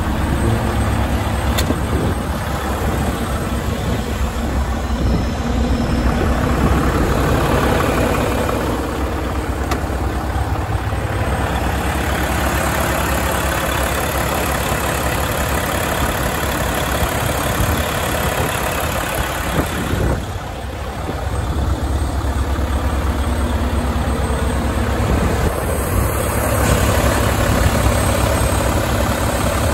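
Volvo VNL semi truck's diesel engine idling steadily.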